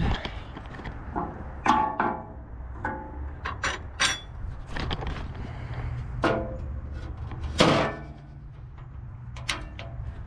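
A series of irregular metal clanks and knocks from the skid steer's sheet-metal hood being shut and handled, a few of them ringing briefly, the loudest about two seconds in and again near eight seconds.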